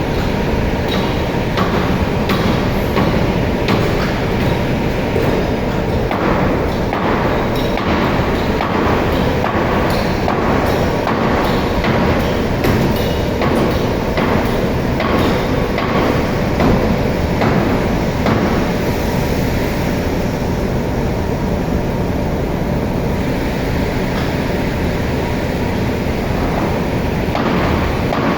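Marble-processing machinery running steadily, with a hum and frequent sharp knocks and clatters, most of them in the first twenty seconds.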